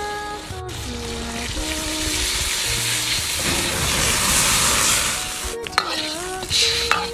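Food sizzling and frying in hot oil in an iron wok over a wood fire, stirred with a metal ladle. The sizzle is loudest around the middle, while the oil flares. Background music plays throughout.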